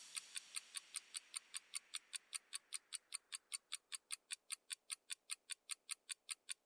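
Quiz countdown timer sound effect: a steady clock-like ticking, about five ticks a second.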